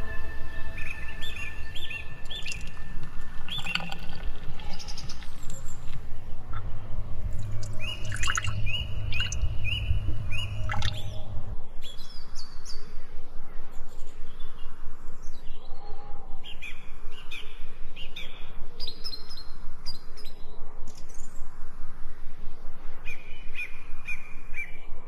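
Birds chirping and calling in repeated short phrases. Under the first half there is a low rumble that cuts off about halfway through.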